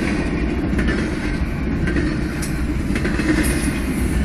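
Norfolk Southern double-stack intermodal freight train rolling past a grade crossing: a steady rumble of wheels on rail with faint scattered clicks, heard from inside a car.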